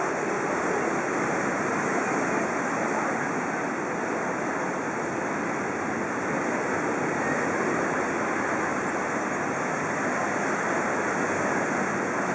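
Steady rushing outdoor noise, an even wash with no distinct events, typical of a beachfront street's ambience.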